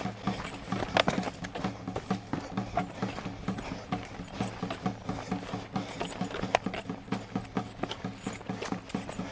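Quick running footsteps thudding along a dirt forest trail, several a second in an even rhythm, over a steady low hum.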